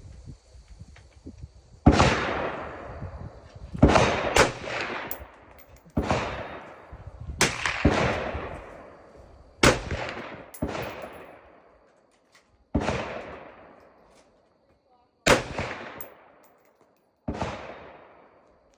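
Gunshots fired one at a time at an uneven pace, about a dozen in all, each sharp crack followed by a long echoing tail that dies away over a second or more.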